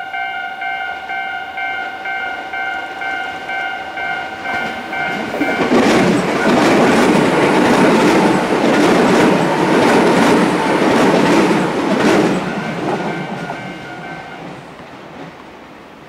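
Japanese railway level-crossing alarm ringing with a steady repeated ding. About six seconds in, an electric commuter train passes close by, its wheels clattering over rail joints for about six seconds before fading away. The alarm stops a little before the end.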